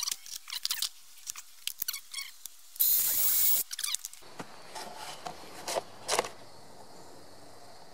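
Small metal squeaks and clicks from a steel bracket and bolt being handled, with a loud rustling burst about three seconds in and a few more clicks after it.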